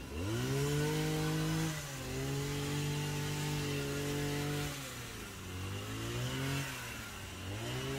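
Small petrol engine of a powered hedge trimmer revving up to high speed and held there, eased off and opened up again three times as the throttle is worked while cutting.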